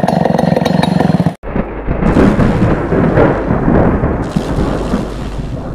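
Stihl 070 two-stroke chainsaw running at speed, cut off abruptly about a second and a half in. After a brief gap comes a steady thunder-like noise effect.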